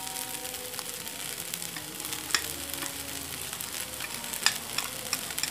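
Fried rice sizzling steadily in a hot wok as sweet soy sauce is poured over it. Sharp clicks of the metal spatula come once about two seconds in and several times near the end.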